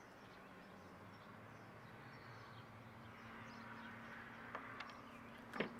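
Near silence: faint outdoor background with a faint steady low hum through the middle and a couple of soft clicks near the end.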